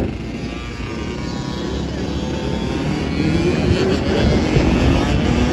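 Sport quad and dirt bike engines running and revving close by, growing louder, with rising revs in the second half.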